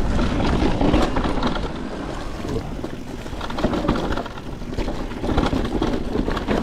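Wind buffeting the microphone, with the rumble and rattle of a Niner WFO e9 mountain bike rolling fast down a rocky dirt trail.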